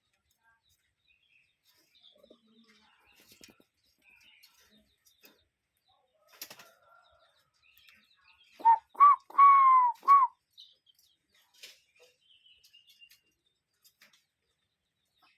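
Cuckoo calling one clear four-note phrase of whistled notes, the third note the longest, about halfway through. Faint chirps of other birds are heard around it.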